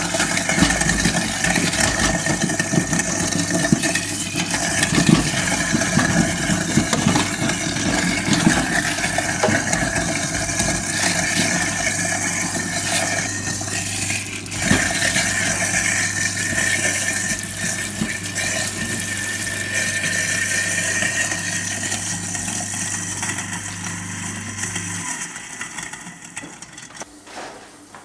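InSinkErator Evolution 200 food waste disposer running with a steady hum, grinding food scraps pushed into the drain while tap water pours into the sink. The motor shuts off about 25 seconds in.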